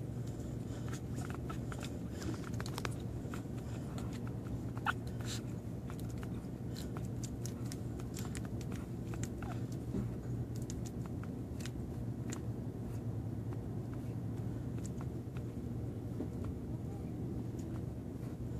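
Newborn pitbull terrier puppies suckling at their mother, small scattered smacking clicks over a steady low hum.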